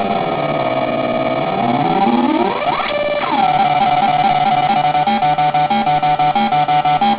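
Homemade breadboard synth, a 555 timer tone run through a 4000-series ring modulator, giving a harsh ring-modulated electronic tone. Its pitch sweeps down and back up, swoops sharply upward about three seconds in, then settles into a fast, steady pulsing step sequence.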